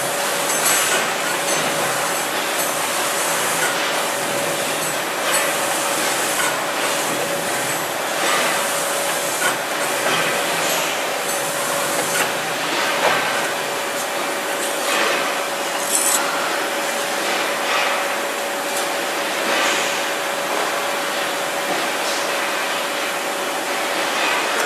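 Powered roller for ridge tiles running over concrete mortar on the mould, amid tile-making machinery: a steady hum under a constant noisy din, with scattered clicks and knocks.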